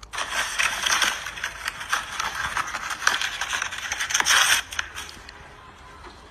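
Crumpled paper rustling and crackling as a small owl tears and shreds it with its beak, in a rapid run of crinkles that dies down near the end.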